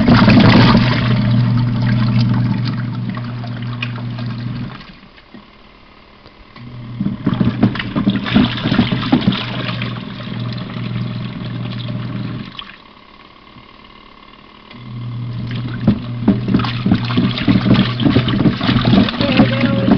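Portable washing machine's electric agitator motor humming while water and a pair of shoes slosh in the tub, in runs of about five seconds broken by two pauses of about two seconds as the wash action stops and reverses direction.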